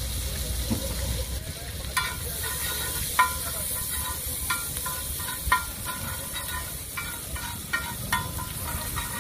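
Butter and oil sizzling with red chillies on a large flat iron tawa as a tadka is fried. From about two seconds in, a steel spatula scrapes and taps the griddle in irregular strokes, each with a brief metallic ring.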